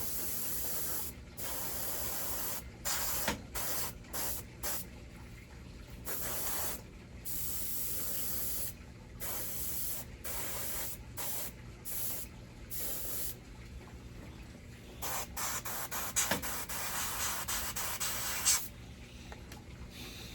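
Airbrush spraying thin shader paint onto a model jet nozzle, its air hiss starting and stopping as the trigger is worked: some sprays a second or two long, many others short and quick.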